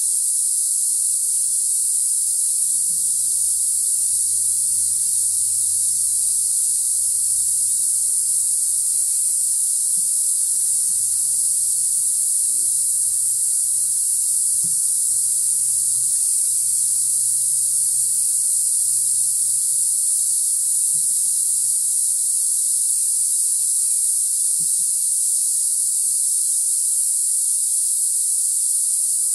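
Steady high-pitched drone of a tropical rainforest insect chorus, unbroken throughout, with a faint low hum beneath it.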